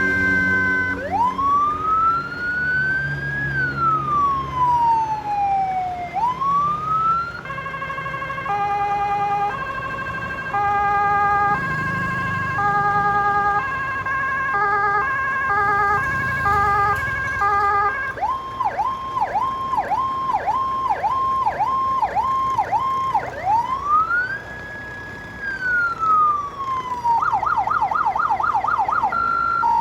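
Electronic police-car siren cycling through its tone patterns: a slow rising and falling wail, then stepped multi-tone beeping patterns, then a fast repeating yelp with about two dips a second, another wail, a rapid warble, and a hi-lo two-tone near the end.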